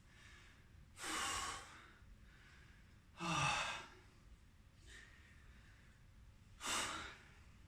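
A man breathing hard between sets of push-ups: three heavy sighing exhalations a few seconds apart, the breathing of someone out of breath from exertion.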